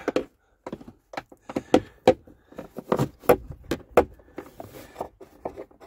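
Socket wrench ratcheting in short strokes as it backs out the blend door actuator's top mounting bolt: a run of irregular sharp clicks and knocks, some in quick clusters.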